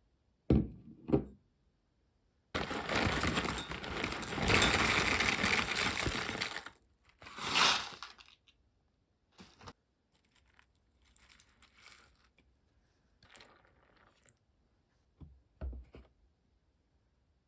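Objects being handled: two light knocks, then several seconds of loud rustling or crinkling, another brief rustle, and a few faint clicks and taps.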